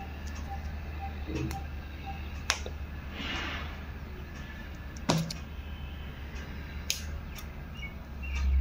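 A steady low hum with a few light, sharp clicks and a brief rustle as hands work a hair clip into a bun. A low rumble swells near the end.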